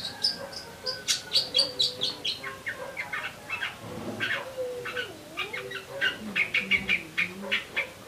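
Long-tailed shrike (pentet) singing a fast chattering run of short, high chirps, sparrow-like calls of the kind the species mimics. A fainter, lower wavering call sounds beneath it through the middle.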